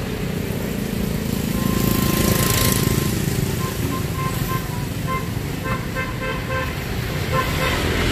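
Street traffic with motorbikes and cars passing, and a vehicle horn: one held note about two seconds in, then a string of short toots.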